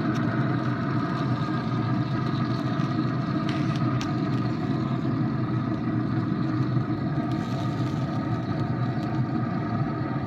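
RecTec pellet grill's combustion fan running, a steady hum made up of several held tones.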